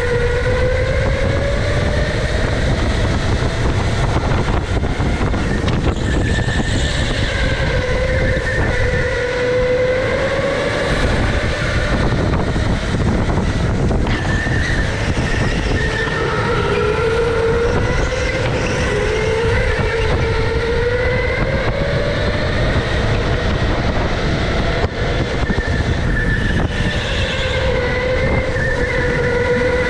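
Electric go-kart motor whining from onboard, its pitch rising and falling repeatedly as the kart speeds up and slows through the corners, over a steady low rumble from the kart on the track.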